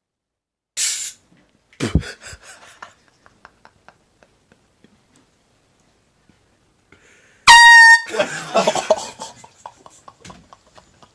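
Air horn blasting once, a loud steady note about half a second long, about seven and a half seconds in. A brief hiss and a knock with light rattling come earlier, and a jumble of noise follows the blast.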